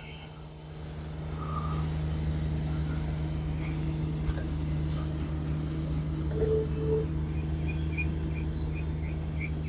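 Steady low engine-like hum that swells over the first two seconds and then holds level, with a string of short high chirps near the end.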